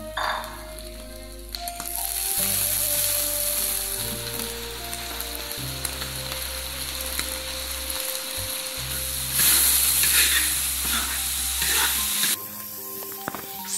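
Small river prawns with chopped green chilies and scallions sizzling in hot oil in a large wok, the sizzle swelling about a second and a half in. It is loudest for a few seconds near the end as a spatula stirs the mix, then drops away.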